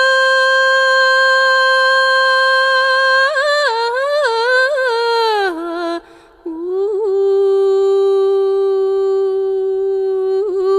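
A woman's voice singing long, wordless held notes in Tibetan devotional style. She slides and ornaments between pitches, falling gradually lower, with a short breath about six seconds in.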